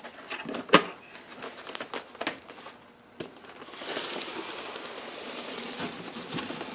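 Cardboard box and packaging being handled: a few sharp knocks and clicks, then from about four seconds in a steady rustling, sliding scrape as the contents are moved in the box.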